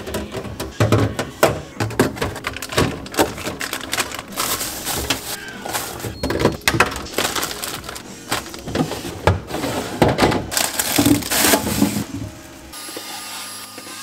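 Plastic containers and packaged food knocking, clattering and crinkling as a plastic basket is set into a refrigerator drawer and filled, in many light irregular clicks and knocks. Near the end the clatter stops and a steady whine from a cordless handheld vacuum takes over.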